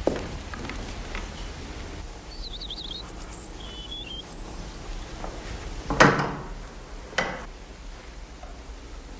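A door shutting with a heavy thud about six seconds in, followed by a lighter knock about a second later. A few faint high chirps come before it.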